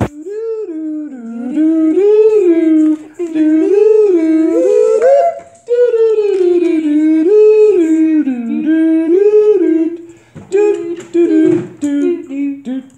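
A voice singing a wordless "do-do-do" tune that rises and falls, held almost without a break for about ten seconds, then breaking into shorter, choppier notes near the end.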